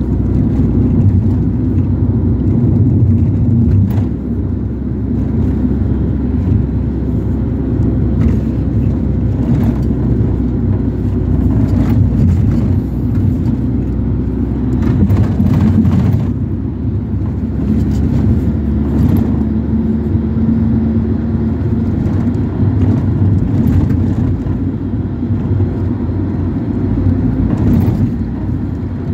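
Ford Transit minibus on the move, heard from inside the cabin: a steady low engine and road rumble, with occasional rattles and knocks.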